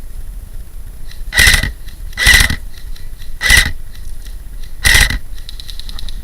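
Four loud, short bursts of noise at uneven intervals of about a second, with faint rapid ticking in between.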